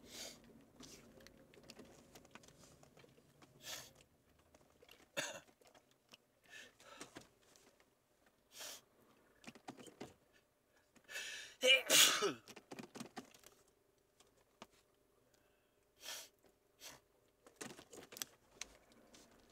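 A person sneezing inside a car: one loud, forceful sneeze about twelve seconds in, led by a short intake, among scattered shorter, quieter bursts.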